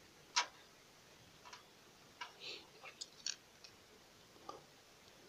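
Faint, irregular light clicks and ticks, a dozen or so, the sharpest about half a second in: plastic wobbler lures and their treble hooks knocking against a plastic tub of water as they are handled.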